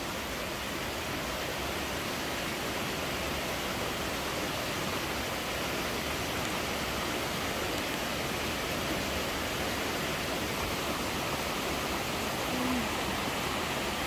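Rocky mountain stream rushing over boulders, a steady even rush of water.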